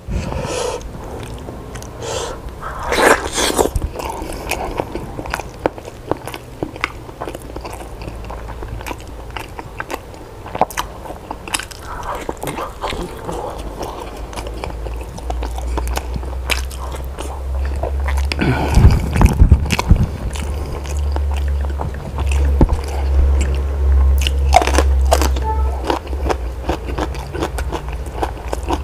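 Close-miked eating: a person biting and chewing food, with many short sharp mouth clicks throughout and a few louder bites.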